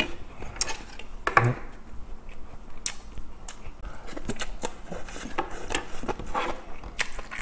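Close-up eating sounds: a person chewing a mouthful of rice, with wet mouth noises and many small clicks. About four seconds in, a bite of green onion kimchi is taken from chopsticks.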